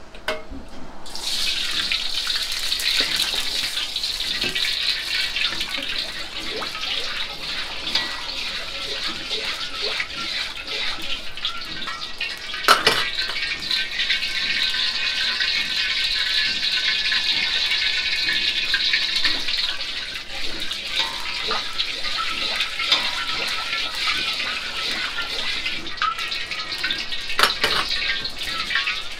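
Commercial gas wok burner turned up to full flame: a steady, loud hiss that cuts in suddenly about a second in. One sharp knock about halfway through.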